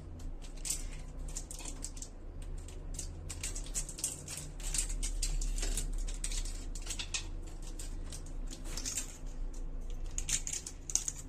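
Plastic candy wrappers crinkling and rustling as small chocolates are unwrapped one after another by hand: many quick crackles, over a low steady hum.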